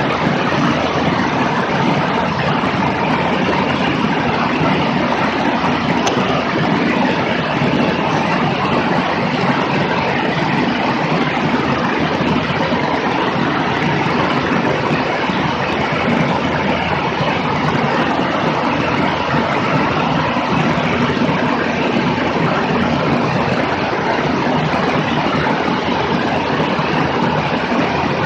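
Light single-engine airplane in cruise flight, picked up by a microphone outside under the wing: a steady, loud rush of wind over the microphone with the engine's drone under it.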